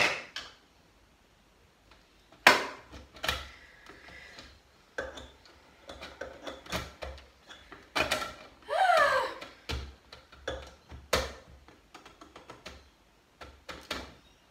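Plastic parts of an electric citrus juicer being handled, fitted together and set down on a countertop: scattered clicks and knocks, the loudest about two and a half seconds in, with a brief falling squeak about nine seconds in.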